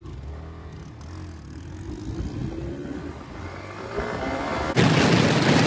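Single-cylinder motorcycle engine accelerating, its pitch rising steadily, then a sudden loud rush of noise about three-quarters of the way in.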